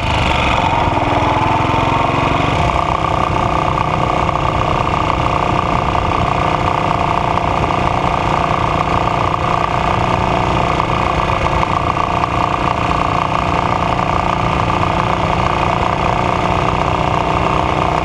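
AJS Model 8 motorcycle engine running; its speed settles over the first couple of seconds, then it idles steadily. This is the engine with the knock that the owner is investigating.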